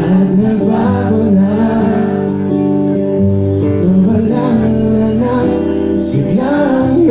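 A man singing live into a microphone while playing chords on an acoustic guitar, with the voice holding and sliding between long notes.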